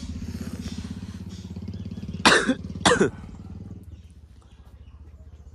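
A vehicle engine idling with an even low hum that drops in level about four seconds in. Two loud coughs, about half a second apart, come a little over two seconds in.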